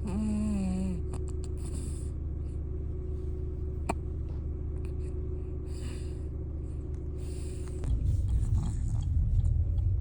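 A sleeping baby snoring: one pitched, wavering snore in the first second over a steady low hum, then a louder low rumble in the last two seconds.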